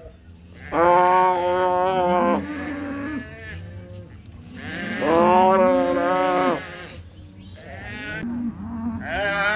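Cattle bawling in a pen: two long, drawn-out calls about four seconds apart, quieter lower calls between them, and another loud call starting near the end.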